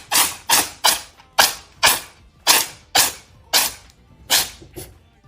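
An animal sneezing again and again, about ten sharp sneezes in quick succession, roughly two a second.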